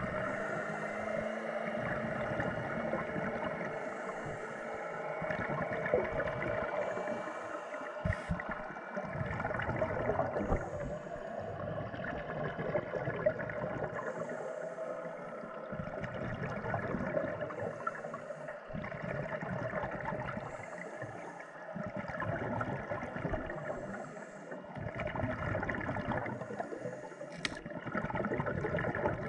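Scuba divers' regulator breathing heard underwater: exhaled air gurgles and bubbles out in swells every few seconds over a steady muffled underwater hum, with a couple of sharp clicks.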